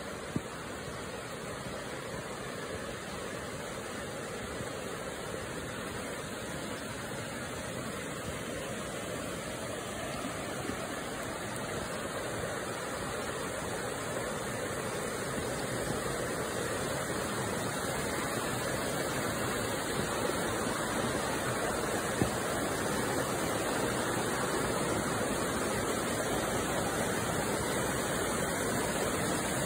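Rapids rushing over flat sandstone ledges toward a waterfall: a steady noise of moving water that grows gradually louder.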